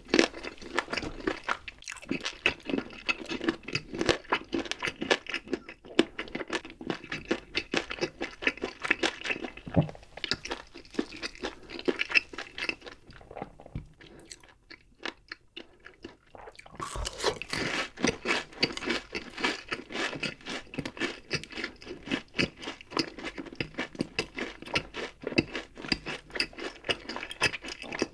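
Close-miked eating: crunchy food bitten and chewed in quick, dense crunches, easing off into a quieter pause about halfway through, then resuming.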